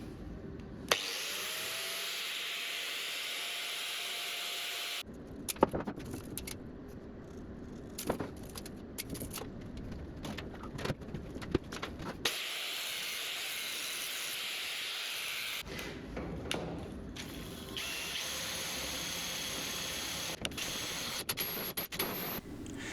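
An angle grinder cutting through a steel auger shaft, heard in several separate stretches of steady grinding hiss. About a second in, the motor's whine rises as it spins up. Between the grinding stretches come sharp metal clanks and knocks.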